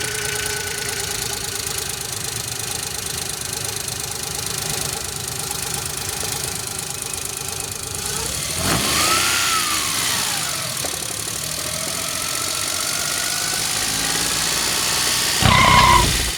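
An engine running steadily, its pitch swooping up and back down about halfway through, with a short high tone near the end.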